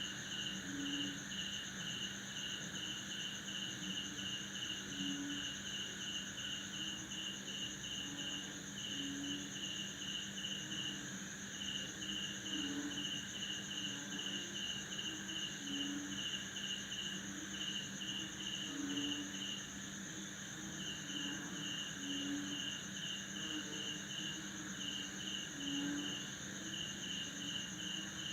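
Night chorus of crickets and frogs after rain: a steady high insect trill under a fast, even run of chirps, about four to five a second, with brief pauses, while frogs give short low croaks every two or three seconds.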